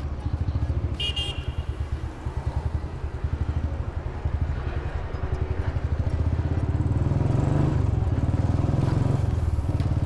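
Royal Enfield Standard 350's single-cylinder engine thumping steadily while riding in traffic, growing louder from about six seconds in. A brief high-pitched beep sounds about a second in.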